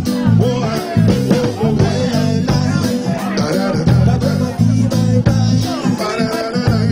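A live reggae band playing an instrumental passage: bass guitar and guitar over a steady beat, without singing.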